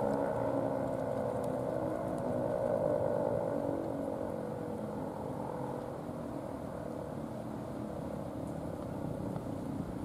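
Single-phase Federal Signal 3T22 outdoor warning siren winding down after its alert signal, its chord sliding steadily lower in pitch and fading out over about five seconds. A low rumbling noise is left.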